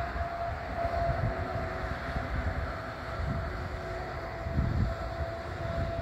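Wind buffeting the microphone in uneven low gusts, with a steady higher hum running underneath.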